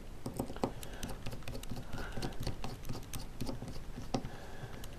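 Small machine screws being handled and fitted into a gimbal motor's mounting plate by hand: light, irregular clicks and taps, several a second.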